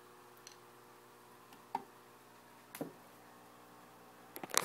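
A few light clicks and knocks from a turkey baster and cup being handled, with a quick cluster of clicks near the end, over a faint steady hum.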